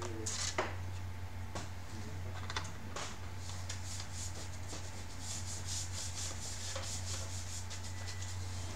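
Hands rubbing and scraping on the inside of a plastic laptop bottom cover, with scattered small clicks that come thicker in the second half, over a steady low hum.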